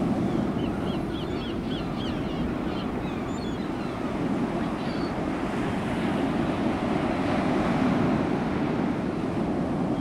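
Ocean surf washing steadily on a beach. A quick series of short, high bird calls comes about a second in, with another call near the middle.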